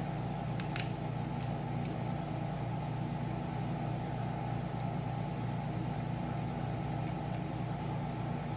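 Air conditioner running with a steady, loud hum, with a few faint clicks in the first second and a half.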